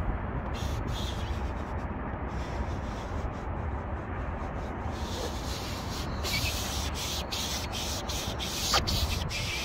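Foam applicator sponge rubbing back and forth over textured black plastic car trim, spreading a coating. It grows louder about halfway through, in short repeated strokes.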